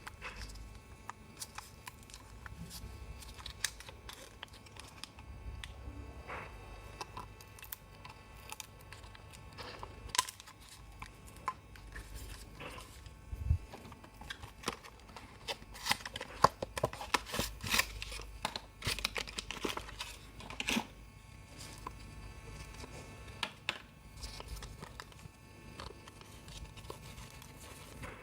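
Scattered small clicks, taps and scrapes of hands working inside an opened laptop, taking out its hard drive, with a busier stretch of handling past the middle.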